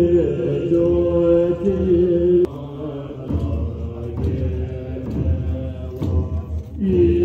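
Buddhist mantra chanting: voices holding long steady notes over a deep low drone, the pitch shifting every second or two.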